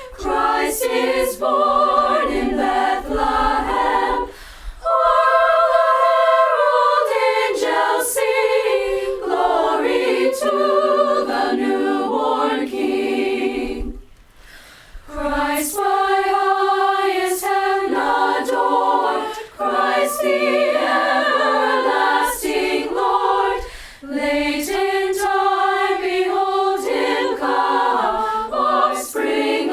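Choir singing a cappella in sustained chords, with a short break of about a second near the middle.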